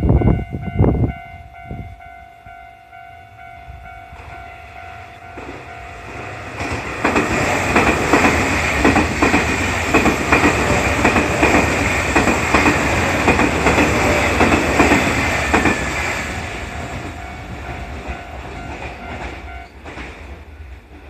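Railroad crossing warning bells ringing steadily with the crossing's 'kan kan' tone while a Nankai electric train passes over the crossing. The wheels rattle and clatter, loudest for about ten seconds in the middle, then fade. The bells stop a little before the end, and a few heavy low thumps come in the first second.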